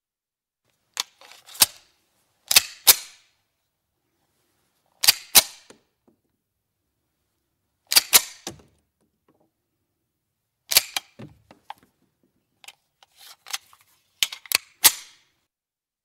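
CZ 75 semi-automatic pistol being handled: sharp metallic clacks of its slide and magazine, in six short clusters of two or more, a couple of seconds apart.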